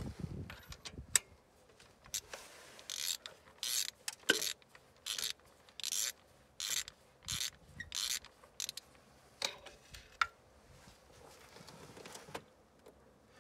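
Ratchet wrench clicking in a run of short ratcheting strokes, about two a second, as a spark plug is unscrewed with a socket and extension, with a few single metal clicks before and after.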